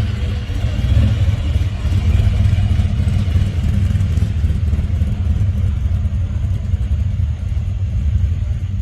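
Straight-axle gasser car's engine idling with a steady, deep rumble.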